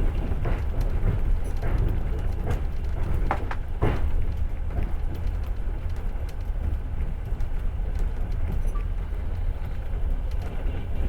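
Passenger train running on the rails, heard from aboard: a steady low rumble of the wheels and carriage, with scattered sharp clicks and a short cluster of knocks about three to four seconds in.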